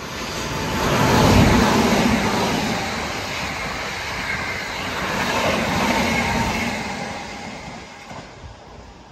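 Hankyu electric train passing by. It rises quickly to its loudest about a second in, swells again around six seconds, then fades away near the end.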